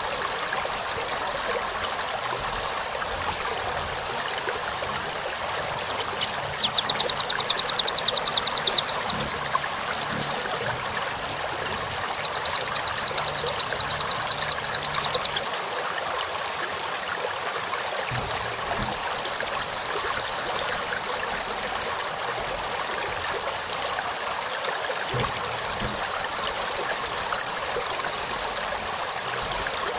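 Velvet-fronted nuthatch (rambatan) singing rapid, high trills of quickly repeated chips in runs of one to several seconds, falling quiet for a couple of seconds about halfway through. Under it runs a steady rushing noise like running water.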